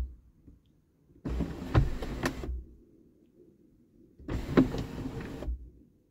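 Ford F-150 panoramic sunroof motor running in two short bursts of a little over a second each, with a few clicks, as the glass panel lifts at its edge and settles back.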